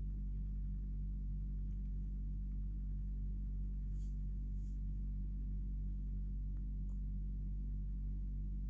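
A steady low hum made of several even tones, unchanging throughout, with a few faint, brief ticks about halfway through.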